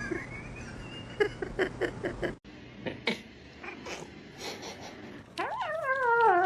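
A cat's long drawn-out meow near the end, sliding down in pitch. Before it come scattered light clicks and taps.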